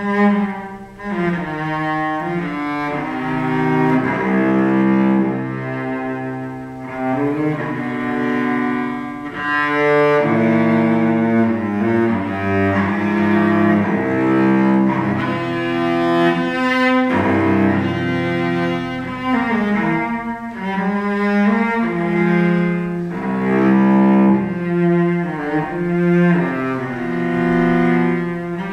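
Solo cello, a copy of a 1740 Montagnana, played with the bow: a continuous melodic passage of sustained notes changing pitch every second or so, with some slides between notes.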